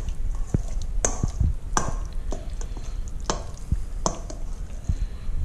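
A metal spoon stirring chopped tuna poke in a stainless steel mixing bowl, clinking and scraping against the bowl in irregular light clicks.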